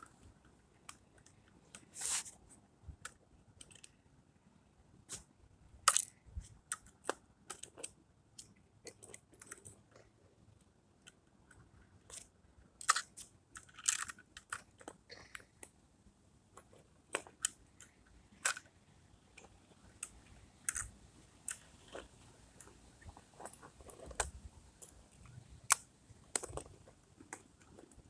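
Irregular small clicks and taps from handling a First Gear toy rear-loader garbage truck and its little plastic garbage carts, as the parts are fitted and set down.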